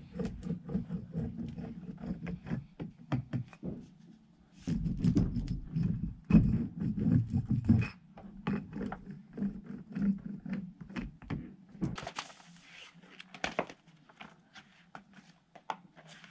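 Irregular knocks, thumps and scrapes of a window being set and worked into a framed wall opening, with a dense run of knocking about five to eight seconds in.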